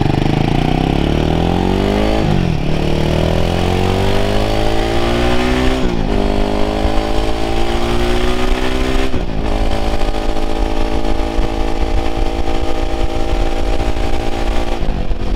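Royal Enfield Himalayan 450's liquid-cooled single-cylinder Sherpa 450 engine accelerating hard through the gears. The pitch climbs in each gear and drops sharply at each of four upshifts, the last near the end.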